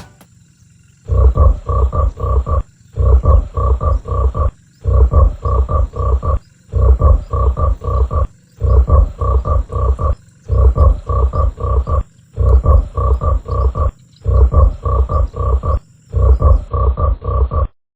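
Loud croaking calls in about nine regular bursts, each a quick run of pulses, with short gaps between them.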